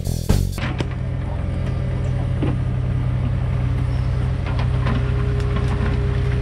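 Diesel engines of Cat heavy equipment, a mini excavator and a compact track loader, running steadily at a constant level, with faint scattered clanks. Music plays for the first half-second and then cuts off.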